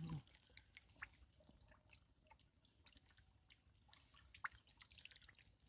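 Near silence with faint, scattered drips and small splashes of water, a few sharper drops standing out about a second in and again past the middle.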